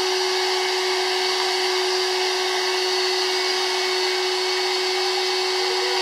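Corded electric stick vacuum running steadily: an even motor hum with a whine that holds one pitch.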